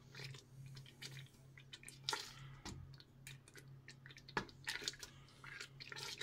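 Thick persimmon-and-apple jam boiling and spitting in a stainless steel pot while a wooden spoon stirs it: faint, irregular soft pops and splats, over a steady low hum.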